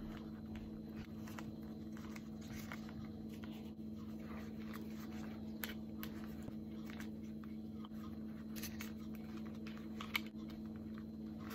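Faint rustling and a few soft clicks of fingers pressing a replacement ear cushion's skirting onto the plastic ear cup of a Bose SoundTrue on-ear headphone. The clearest clicks come about halfway through and near the end, over a steady low hum.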